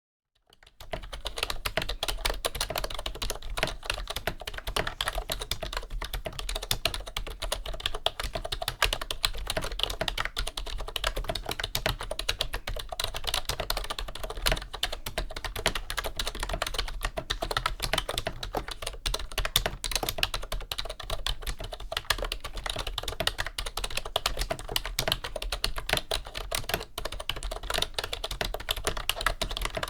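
Fast, continuous typing on a mid-1990s Wyse rubber-dome keyboard with full-height keycaps: a dense stream of key presses and keycap clatter that starts about a second in.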